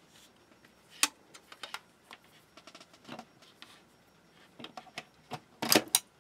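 Clicks and knocks from handling a set-top box's plastic front panel against its metal case. There is a sharp click about a second in, lighter ticks after it, and a louder cluster of clicks near the end.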